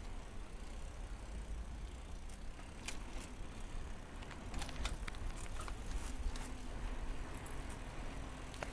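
Bicycle being ridden along a bike lane with the handheld camera's microphone on board: a steady low rumble of wind and tyre noise, with scattered light clicks and rattles.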